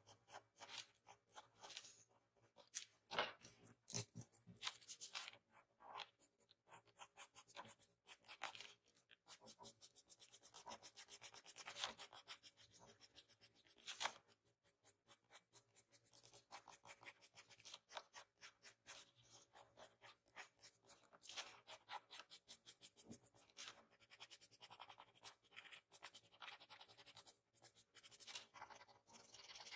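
Pencil lead scratching on paper in faint, quick short strokes, sketching fine hair lines.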